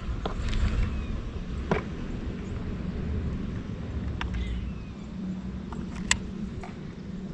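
A low steady rumble with a faint hum, broken by a handful of short sharp clicks and knocks, the loudest about six seconds in: the background of fishing from a boat, with tackle and gear being handled.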